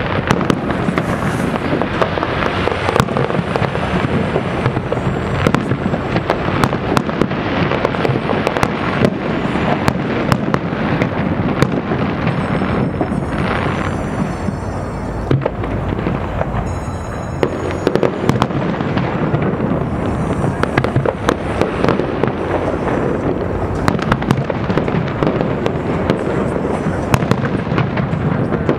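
Aerial fireworks display: shells bursting in a dense, unbroken barrage of booms and crackles.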